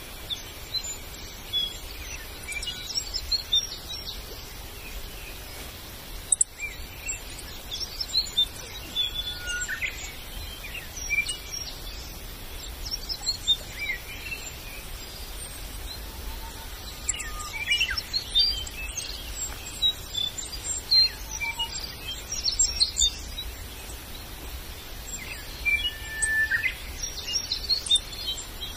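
Forest birds chirping and calling, many short scattered notes and quick whistled glides from several birds over a steady background hiss.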